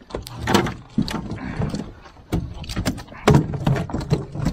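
Irregular knocks and thumps on an aluminium boat as live catfish are handled on the hull floor and put into a bucket, the fish knocking against the metal.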